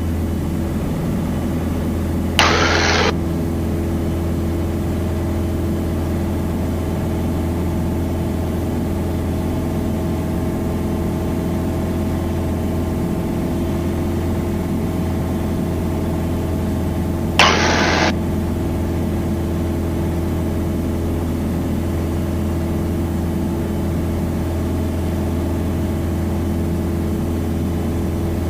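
Piper Dakota's six-cylinder Lycoming engine and propeller running at steady takeoff power during the climb-out, an even drone with a constant pitch. Two short bursts of static cut in, one about two and a half seconds in and another about seventeen seconds in.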